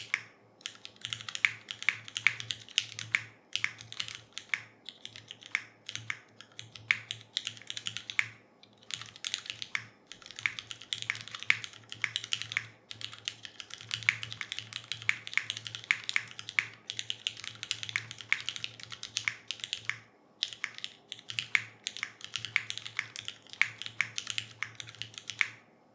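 Typing on a Neo65 Core Plus mechanical keyboard with Cherry MX2A Black linear switches: a fast, continuous run of keystrokes with a few brief pauses, stopping just before the end.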